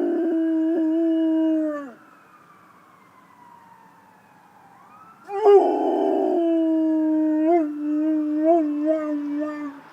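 Rottweiler howling at an ambulance siren: one long howl ends about two seconds in, and a second starts rough about five seconds in, holds steady, then wavers in pitch near its end. The siren wails faintly behind it, slowly rising and falling.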